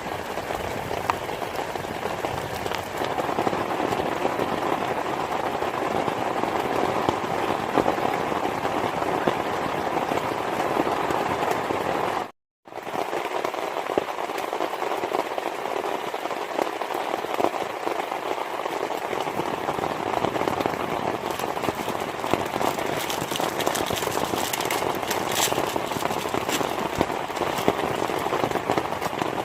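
Heavy rain falling in a dense, steady patter of drops. It cuts out completely for an instant about twelve seconds in, then carries on.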